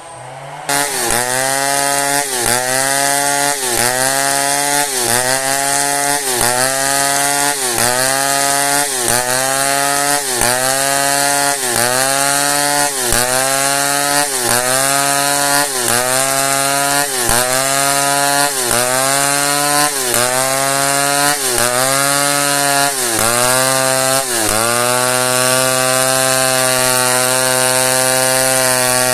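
Chainsaw cutting a hard merbau log, starting loud about half a second in. Its engine note dips and recovers about once a second, then runs steady for the last few seconds.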